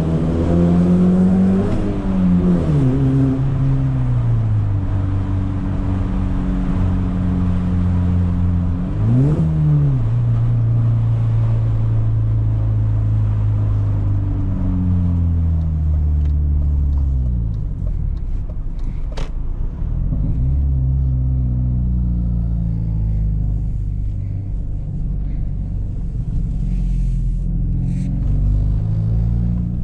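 BMW E46 320i straight-six engine and loud exhaust on the move, its pitch rising and falling through gear changes, with a quick rev blip about nine seconds in. The engine drops off around fifteen to eighteen seconds, a sharp click sounds, and it then pulls back up.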